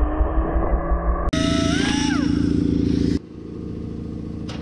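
Angle grinder cutting through steel chain held in a vise, its whine rising and then falling away before it cuts off suddenly. A quieter steady low hum follows, with a couple of sharp clicks near the end.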